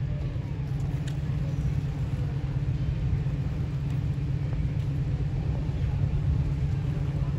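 An engine running steadily: a low rumble with a steady hum that holds the same pitch throughout.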